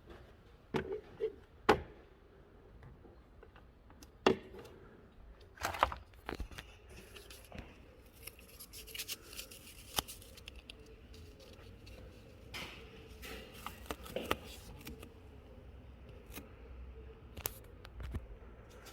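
Hand-work noises while tracking down a car trunk rattle: scattered sharp clicks and knocks, with stretches of scraping and rustling, like cutting or tearing material.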